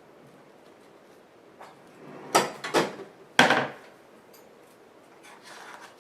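Three hard knocks of a mixing utensil against a bowl in about a second, around the middle, then fainter scraping near the end, as spackle thickened with cornstarch is stirred.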